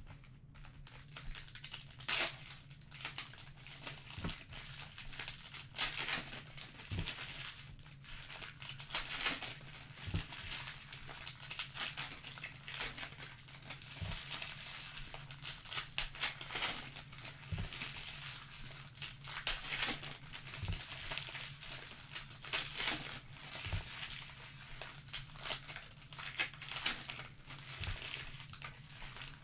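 Foil wrappers of Panini Prizm Breakaway trading-card packs crinkling and tearing as the packs are handled and ripped open, in irregular rustles with sharp little crackles. A faint steady low hum runs underneath.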